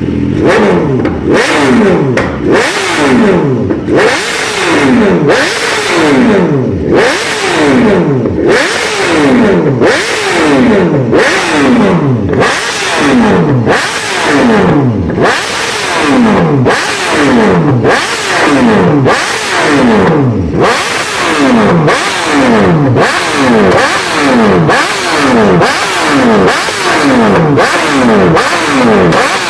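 Inline-four superbike engine with no muffler, free-revved over and over, about one throttle blip a second, each rev shooting up and falling back.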